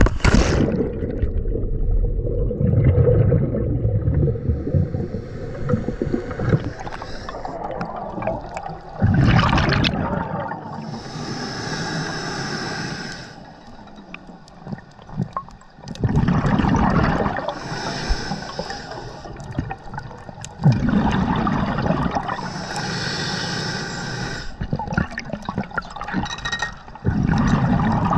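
Splash of a scuba diver rolling backward into the sea, then underwater scuba breathing: each breath a hiss through the regulator on the inhale and a loud bubbling rumble of exhaled bubbles, about every six seconds.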